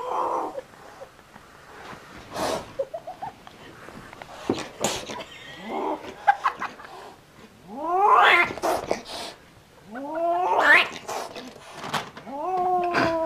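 Kitten yowling and growling: three drawn-out calls that rise and fall in the second half, with shorter growls and a few soft knocks before them.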